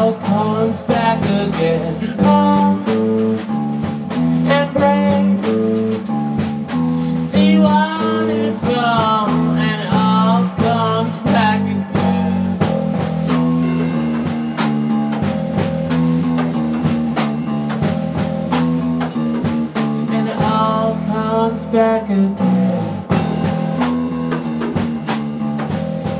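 Live blues-rock band playing: electric guitar over a drum kit with steady cymbal and snare strokes, and a wavering lead line that comes in three times.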